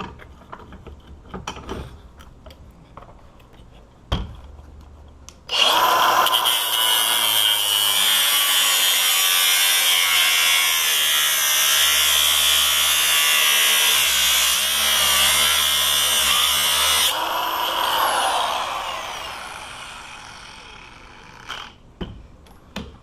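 Power tool with a cutoff wheel starting suddenly about five seconds in and grinding through the steel housing of a disk padlock for about eleven seconds, a loud high whine and grinding. It is then switched off and winds down with a falling pitch over a few seconds. Light handling clicks come before and after.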